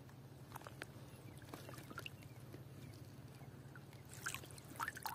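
Faint small water splashes and drips, with soft clicks, as a freshly netted fish is handled at the water's surface, over a steady low hum.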